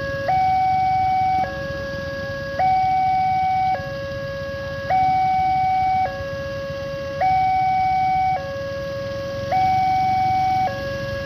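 Railway level-crossing warning alarm sounding from the loudspeaker on the signal pole: a two-tone hi-lo signal that switches between a louder high note and a lower note about every second. It warns that a train is approaching and the crossing is closed.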